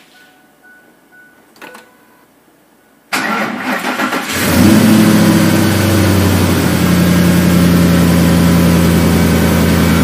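Ford 5.4-litre three-valve V8 cranking for about a second, catching, running fast briefly and then settling to a steady idle.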